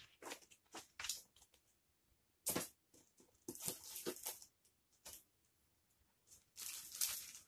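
Paper and packaging being handled, a series of short rustles with the loudest about two and a half seconds in.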